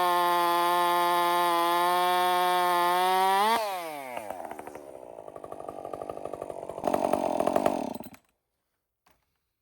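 Chainsaw fitted with a full-chisel chain running steadily at full throttle, then let off about three and a half seconds in, its pitch falling quickly. It runs unevenly at low revs with a brief rise, then shuts off suddenly about eight seconds in.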